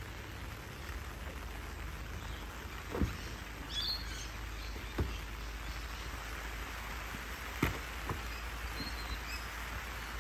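Steady hiss of light rain falling, broken by four sharp knocks and a couple of short bird chirps.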